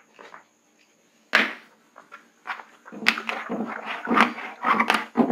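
Whiteboard duster wiping marker off a whiteboard in quick scrubbing strokes, about two a second, from about halfway in. A single sharp knock comes about a second in.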